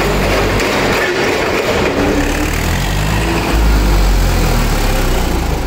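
Voltas forklift's engine running as the forklift drives; its low rumble grows louder about three and a half seconds in.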